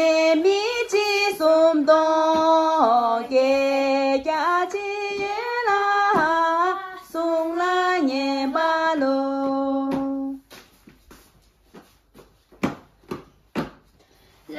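Young girls' voices singing a Tibetan song in unison, with held notes that step up and down in pitch. About ten seconds in, the singing stops and a few sharp knocks follow.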